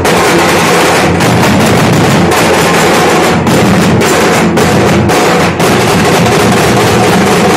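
A Nashik dhol band of several large barrel drums beaten with sticks, playing a loud, dense, continuous rhythm.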